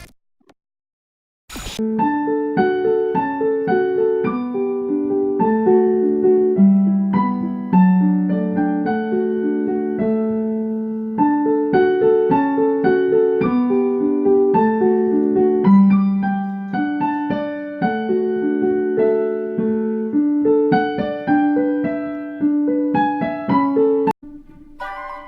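Piano playing a melody over chords in a steady rhythm, starting after a short silence and a click, and cutting off abruptly near the end.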